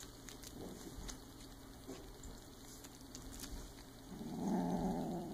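Silver Bengal kitten playing with a toy: faint scuffles and taps, then a low growl of about a second starting about four seconds in.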